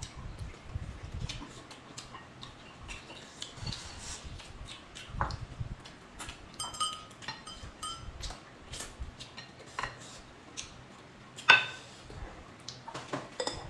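Eating at a table: chewing and mouth noises with chopsticks tapping and clinking on ceramic plates and bowls. A few short ringing clinks come around the middle, and the loudest sharp clink is near the end.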